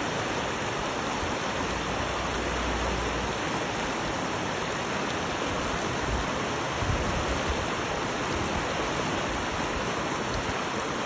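Steady rush of flowing water, with brief low rumbles about two and seven seconds in.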